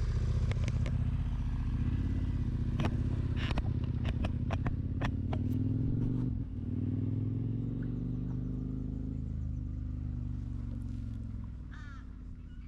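Motorcycle engine running and pulling away, with a burst of sharp clicks early in the ride-off and a short break and change of pitch about six seconds in, as on a gear change, then fading as it goes. Crows calling near the end.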